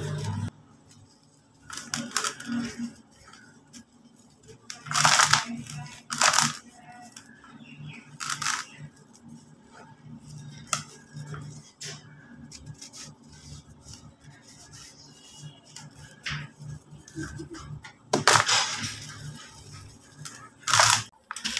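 Dry cement and white concrete chunks crushed and crumbled by hand over a plastic bucket of cement dust: irregular gritty crunching, with about five louder crunches and softer crumbling of grit between them.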